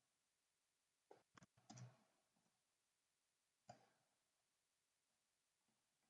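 Faint computer keyboard keystrokes over near silence: a quick run of four or five clicks about a second in, then a single click near the middle.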